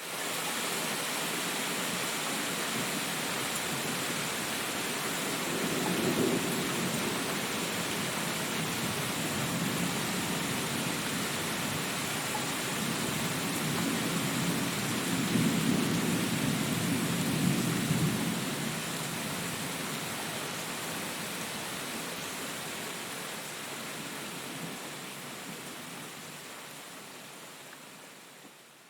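Thunderstorm: steady rain hissing, with thunder rumbling twice, a short roll about six seconds in and a longer, louder roll around the middle. The whole sound fades out over the last few seconds.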